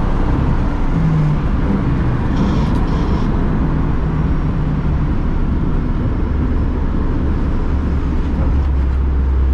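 BMW M2 CS Racing's twin-turbo straight-six running under way, heard from inside the stripped race-car cabin along with heavy road and tyre rumble. A strong, steady low drone comes up near the end.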